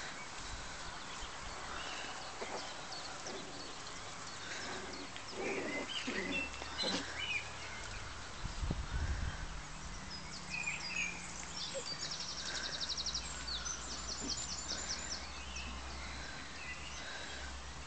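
Birds singing outdoors: scattered short chirps, and a rapid high trill given twice a little past the middle. A brief low rumble about halfway.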